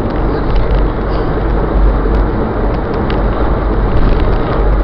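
Steady, loud road and engine rumble of a moving vehicle, as picked up by an in-car dash camera, with a few faint ticks and rattles.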